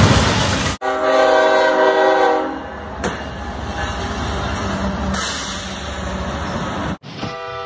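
A loud noisy crash at the start, then a multi-tone train horn sounding for about two seconds, followed by a steady rumble of rolling train noise. After an abrupt cut near the end, another horn-like chord of steady tones begins.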